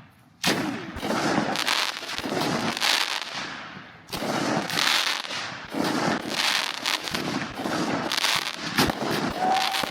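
Multi-shot consumer firework cake going off: a sharp report about half a second in, then a dense run of crackling and popping bursts, a short lull around four seconds, and a second run of shots.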